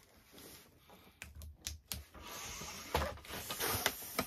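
Latex twisting balloon being inflated: a few sharp clicks of handling, then a steady rush of air from about two seconds in.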